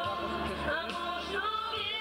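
Female vocal trio singing together through handheld microphones, their voices amplified by the stage sound system.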